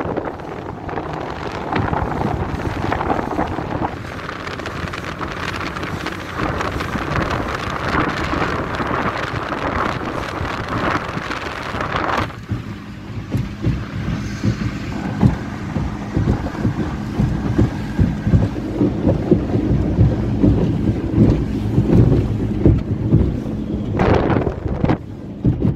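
1982 Sidewinder speedboat running fast across a lake: wind buffeting the microphone over the rush of water and spray. About halfway this gives way to a steady low engine drone with many irregular thumps.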